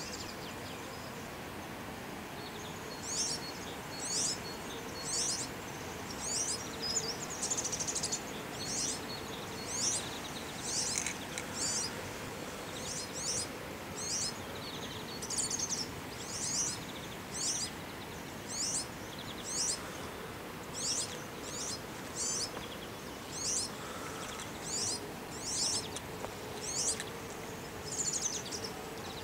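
European serin singing: short, high jingling bursts repeated about once a second, beginning about three seconds in, over steady background noise.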